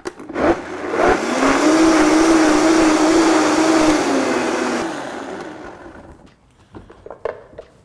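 Countertop blender running for about four seconds to mix sugar into a liquid gazpacho, then switched off, its motor winding down with a slightly falling pitch.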